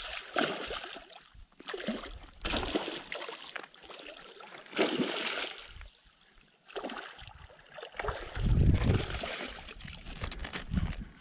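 A hooked muskie thrashing and splashing at the surface in shallow water, in several irregular bursts with short lulls between them. About eight seconds in there is a loud low rumble.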